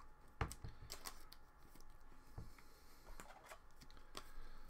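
Hockey trading cards being handled and flipped through by hand, with quiet, scattered clicks and slides of card stock.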